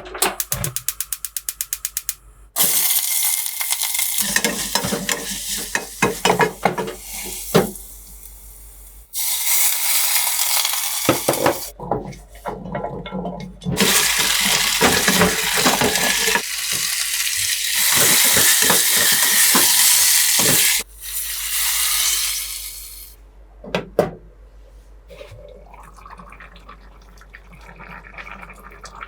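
Kitchen sounds: a quick run of rapid, even clicks for about two seconds, then water running from a tap in several spells, with clatter and knocks in between. The longest and loudest spell of water runs from about 14 to 21 seconds in.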